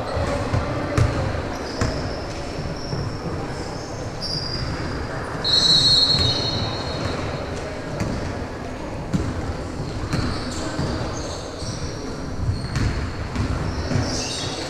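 Sounds of a game played indoors on a hard court: a ball bouncing repeatedly on the floor, with short high-pitched squeaks scattered through. A longer, louder high squeak comes about six seconds in.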